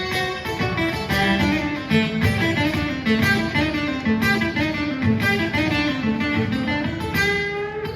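Acoustic blues guitar playing an instrumental passage, a run of picked single notes over strummed chords.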